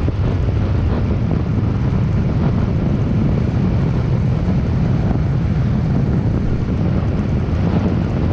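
Small scooter engine running steadily while riding at speed, with wind rushing over the helmet-mounted microphone.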